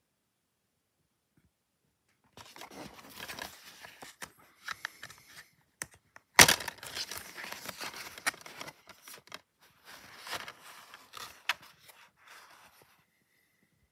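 Plastic DVD case being handled and pried open: rustling and scraping, with a sharp snap about six seconds in as the case unlatches, then a few smaller clicks.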